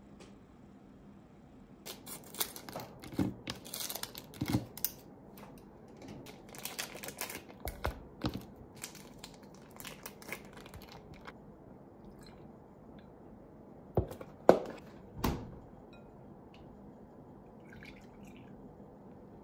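Plastic wrappers of individually packed kirimochi rice cakes crinkling as they are torn open, followed by three sharp knocks about two-thirds through as the hard mochi blocks are set into a glass bowl. Milk is poured faintly over them near the end.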